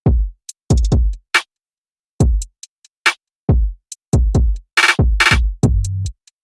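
Electronic background music made of drum-machine beats: deep kick drums whose pitch drops quickly, crisp clicks and snare hits, with silent gaps between them and a quick run of hits about five seconds in.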